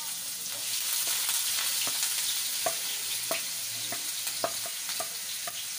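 Chopped onions sizzling steadily as they land in hot oil in a frying pan, the sizzle starting at once. Short sharp taps and scrapes of a wooden spatula against the plate and pan come every half second or so as the onions are pushed in.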